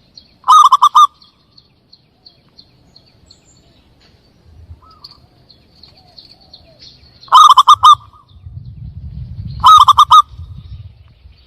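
Zebra dove (perkutut) calls played as a hunting lure: three short, loud bursts of quick repeated cooing notes, the first half a second in and two more about seven and nine and a half seconds in. Faint high chirps of small birds sound between them, and a low rumble runs under the second half.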